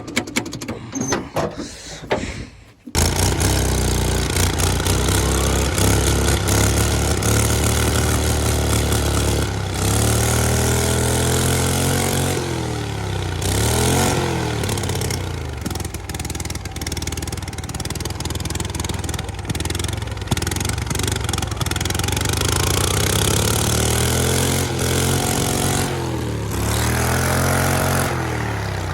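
Turbocharged V-twin lawnmower engine sputtering for a few seconds, then catching and running. Its speed dips and comes back up several times.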